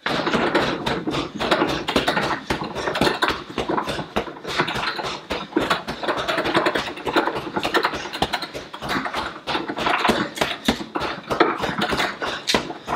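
Heavy punching bag being hit with a fast, steady run of straight punches, several thuds a second without a break.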